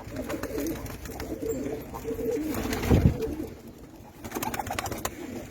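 Domestic pigeons cooing in a loft, with a brief low thump about three seconds in and a run of light clicks near the end.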